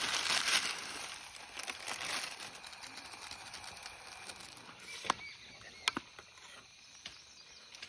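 A plastic seasoning packet crinkling, fading out within the first second or so, then a few sharp clinks of a steel spoon against the cooking pot about five and six seconds in.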